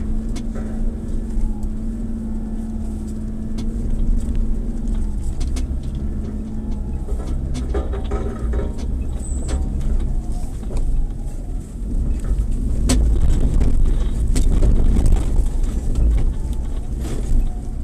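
4x4 off-road vehicle's engine running with a deep, steady drone, mixed with frequent short knocks and rattles. It grows louder about two-thirds of the way through.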